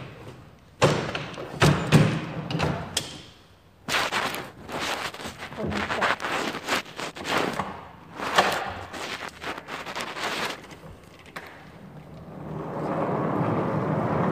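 Hard-shell suitcase with an aluminium frame being knocked and moved about on a hard floor: a few heavy thumps in the first couple of seconds, then a long run of clattering knocks and rattles, and a steady rumbling noise that builds near the end.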